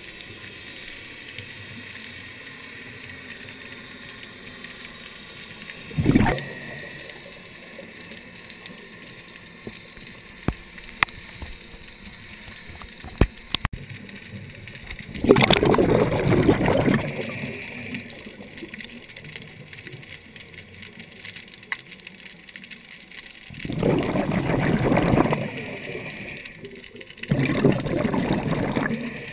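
Scuba diver's exhaled bubbles gurgling out of the regulator, heard underwater: a short burst, then three longer bursts of a second and a half to two seconds each in the second half, with a few sharp clicks in between.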